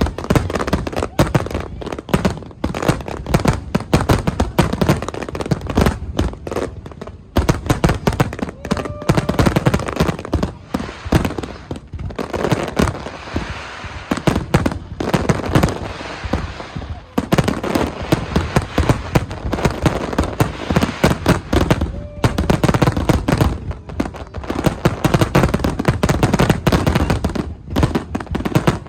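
Fireworks going off in rapid, continuous volleys of bangs and crackles, with a denser hissing crackle from about thirteen to seventeen seconds in.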